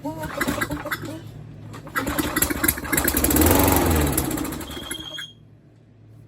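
Tecumseh 6.5 hp mower engine on a Toro Recycler pull-started on a shot of brake cleaner. It catches on the first pull, runs for about three seconds, then dies out about five seconds in. It fires on the starting fluid but will not keep running on its own: it has spark and compression, but the fuel side is at fault.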